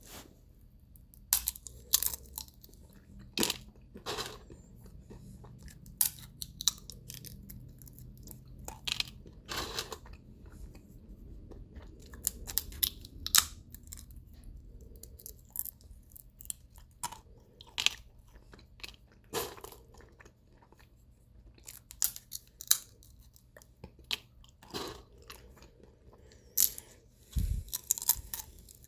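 Sunflower seeds in the shell being cracked open between the teeth and chewed: irregular sharp cracks and crunches, sometimes several in quick succession, with short pauses between.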